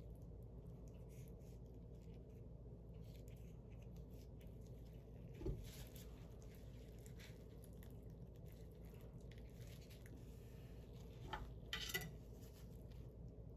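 Faint handling sounds of gloved hands and a fillet knife working cartilage out of a raw chicken wing. There is a single knock about five and a half seconds in and a few clicks near the end as the knife meets the glass cutting board.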